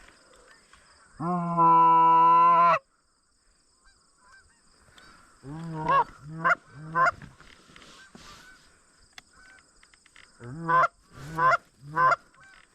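Hand-blown goose call: one long held note about a second in, then a string of three short honks that rise and fall in pitch and, near the end, a string of four more, calling to geese on their approach.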